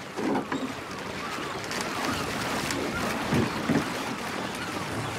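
Lake water splashing and rushing along the hull of a small boat, with wind.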